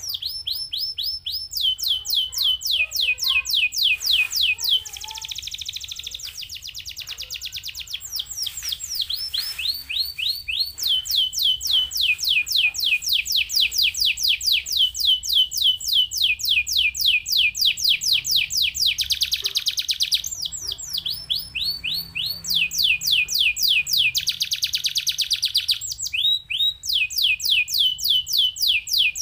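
Domestic canary singing a continuous song of fast trills. Each trill is a rapid run of identical falling whistled notes, and the song switches to a new trill every second or two, with a couple of buzzier rolls in between.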